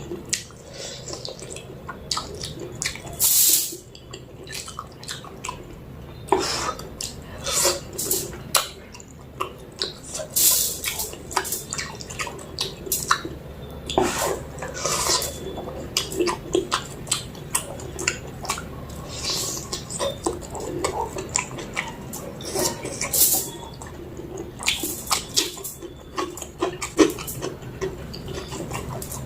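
Close-miked eating of mutton curry with rice: wet chewing and lip-smacking with many small clicks, and a few short hissing slurps.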